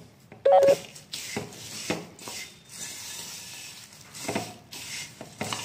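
Spoon stirring and tossing dry, crunchy fried mixture of sev, peanuts and boondi in a steel bowl: repeated rustling scrapes, with a loud clink about half a second in.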